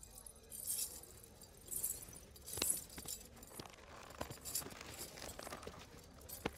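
Faint rustling and crunching in a few short bursts, loudest about two and a half seconds in, with several sharp clicks or knocks, one of them near the end.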